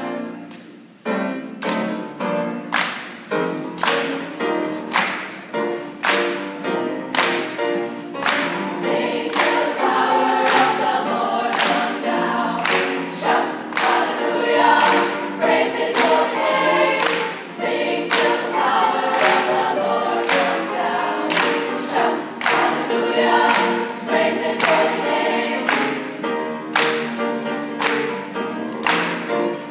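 Women's choir singing an up-tempo gospel song with piano, starting about a second in. Sharp hand claps keep a steady beat through the singing.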